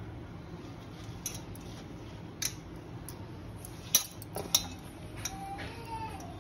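A steel strainer clinking against a steel mixing bowl as chopped fenugreek leaves are tipped into flour: several sharp metallic clinks, spaced about a second apart.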